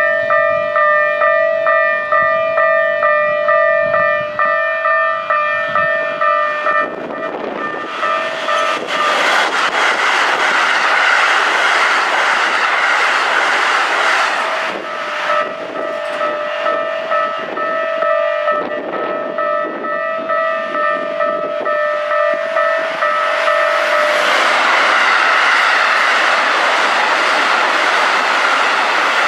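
Japanese level-crossing alarm ringing in a steady pattern of about two tones a second. About seven seconds in it is drowned out by a Keikyu Series 1000 electric train running over the crossing. The alarm comes through again once that train has cleared, and a second Series 1000 train passes near the end.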